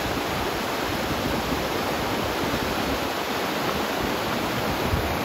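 Steady rush of a fast-flowing river, an even roar of water with no change in level.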